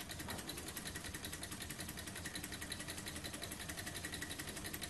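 Tarot beam-type model Stirling engine running at speed: a fast, even mechanical ticking as the flywheel spins.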